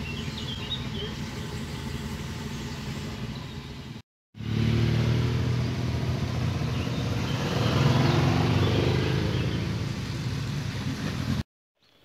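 Several touring motorcycles' engines running at idle, with a few bird chirps at first; after a brief dropout the engines are louder as the bikes pull away, swelling to a peak about eight seconds in.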